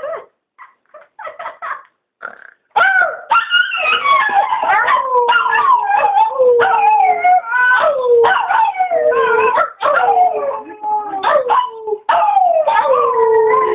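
Chihuahua howling: a few short whimpers and yips, then from about three seconds in a near-continuous run of loud howls, each sliding down in pitch, sounding as if the dog is in pain.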